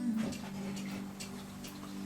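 Mechanical clock ticking steadily, about two ticks a second, over a low held note of background music.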